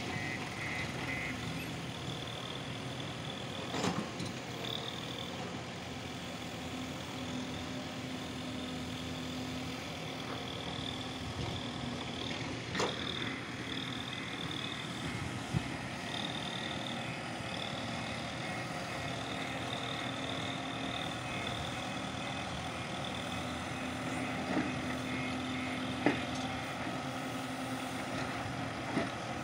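Diesel engines of backhoe loaders and tractors running steadily, with a high whine that comes and goes and a few sharp knocks.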